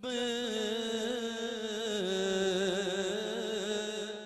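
Male voice singing a naat, holding one long wavering note that drops in pitch about halfway through and fades near the end.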